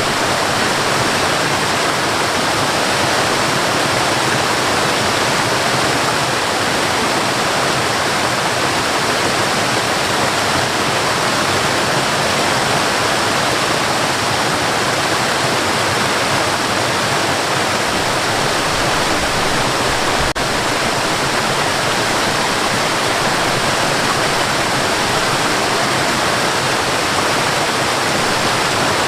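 Waterfall and river water rushing, a steady full hiss and roar with no change in level.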